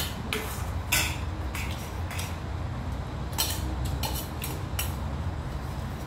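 Metal spoon clinking and scraping against a stainless steel bowl, a string of short, sharp clinks at uneven intervals, over a steady low hum.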